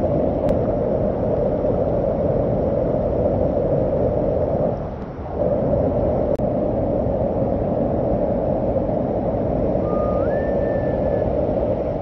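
Steady rush of a large waterfall, a loud even roar of falling water. About ten seconds in, a short high tone rises in a step above it.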